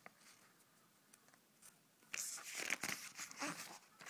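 Paper magazine pages being flipped and rustling, starting about halfway in after a quiet first half.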